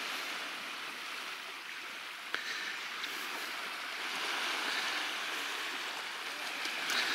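Small Baltic Sea waves washing on the shore: a steady rushing hiss that swells and eases slightly.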